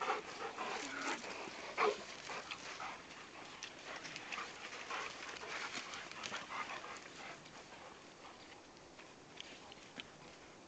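Several dogs play-fighting, with short, irregular growls and yelps, busiest in the first half with a sharp loud one about two seconds in, then dying down.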